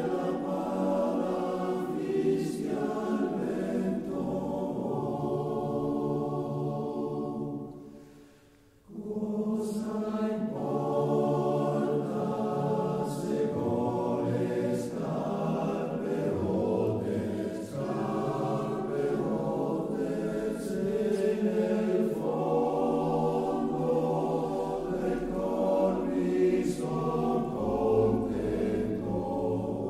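Choir singing as background music, slow sustained lines of many voices. The singing fades to a brief pause about eight seconds in and then resumes.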